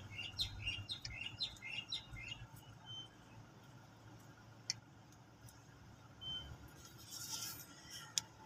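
A small bird chirping: a quick run of short chirps in the first couple of seconds, then a few single short notes. Two sharp clicks stand out later on.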